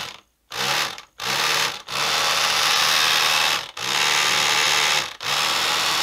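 Small electric motor and plastic gearbox of a Double E 1:20 scale RC road roller running in about five runs of one to two seconds with brief pauses, with the ratcheting clicks of its slipper clutch, which signal that the function has reached the end of its travel.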